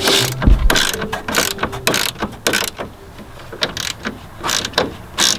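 Hand ratchet wrench clicking in quick bursts as it is worked back and forth on a bolt, louder and busier in the first couple of seconds, then sparser.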